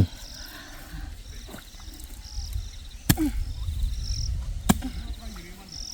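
Insects chirping steadily in a rapid pulsing trill, with higher chirps repeating about once a second. A low rumble runs underneath, and two sharp knocks come about three seconds in and near five seconds.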